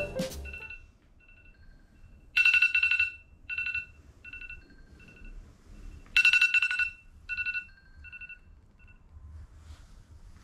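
Smartphone alarm tone ringing in a repeating electronic pattern: a loud burst about two seconds in and another about six seconds in, each followed by fainter repeats.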